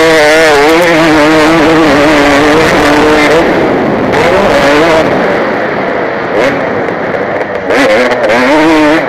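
KTM 250 motocross bike engine revving hard under racing throttle, its pitch rising and falling with throttle and gear changes. It eases off about three seconds in and picks up again near the end, over a steady rush of noise into the helmet camera.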